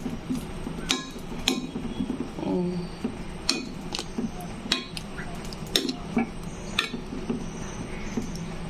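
Steel spoon stirring a thick curry in an aluminium pot, scraping through the food and knocking against the pot's sides about seven times, with a steady low hum underneath.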